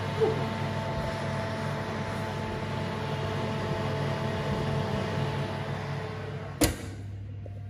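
Fan of a Falcon range cooker's fan oven running with the door open: a steady hum with a few fixed tones. A single sharp knock near the end, after which the hum is duller.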